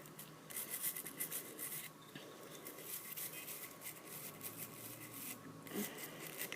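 A toothbrush scrubbing the metal chimney and parts of a Zippo lighter: a faint run of quick, scratchy bristle strokes, with a short pause about five seconds in.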